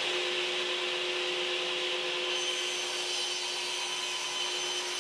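A power tool running steadily and cutting wood: a constant motor whine over the rasping noise of the cut.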